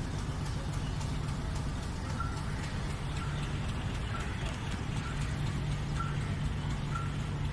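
Steady low hum of a diesel locomotive running at the station, with a short high-pitched chirp repeating about once a second from about two seconds in.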